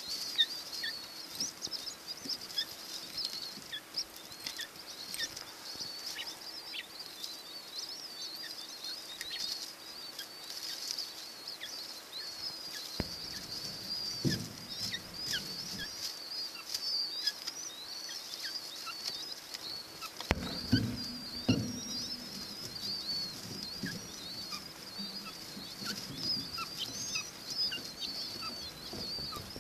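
A brood of Chinese painted quail chicks peeping continuously: many overlapping, thin, high-pitched cheeps. A few low soft thumps occur around the middle.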